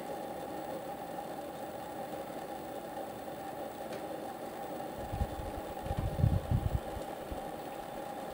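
Steady mechanical hum, like a distant idling engine or a ventilation fan. From about five seconds in, wind gusts buffet the microphone with loud, irregular low rumbles.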